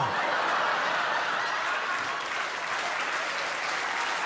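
A large audience applauding steadily, clapping that starts just as the last spoken line ends.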